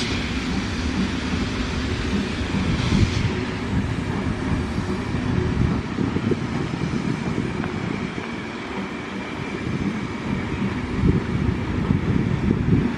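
Passenger coaches of a departing train rolling past: a steady rumble of steel wheels on the rails, with a few louder knocks near the end.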